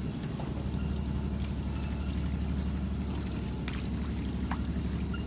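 Small boat's engine running steadily, a low hum with a fast, even pulse.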